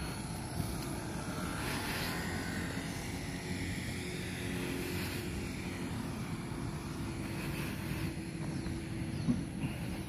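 Steady low rumble of a moving vehicle's engine and road noise, with a faint whine that rises and falls around two seconds in and a brief knock near the end.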